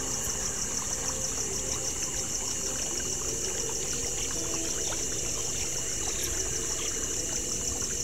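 Creek water trickling steadily, with a high, fast-pulsing chirr over it.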